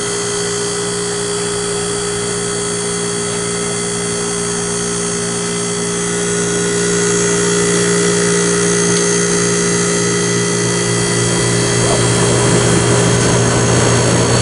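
1972 HeatController 9,000 BTU window air conditioner running, its Tecumseh compressor and fan giving a steady electric hum under a rush of air. The sound gets louder about halfway through and again near the end.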